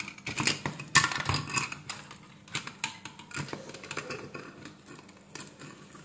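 Clicks and light taps of metal tweezers and small plastic parts being handled as the battery is pried out of a headset's earcup, with one sharper click about a second in.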